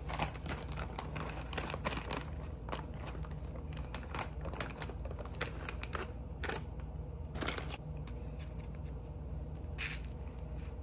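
Shredded cheese being sprinkled by hand onto an egg roll wrapper on a foam plate: scattered light clicks and rustles at irregular moments over a steady low hum.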